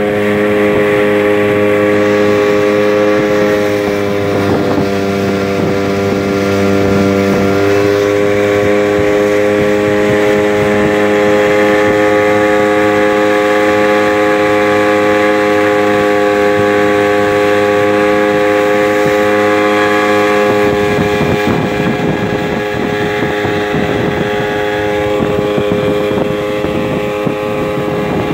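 A 15 hp outboard motor runs at a steady cruising speed, driving the boat along, with water rushing past the hull. Its pitch dips slightly about seven or eight seconds in. In the last several seconds the engine's low hum fades under a louder rush of water and wind.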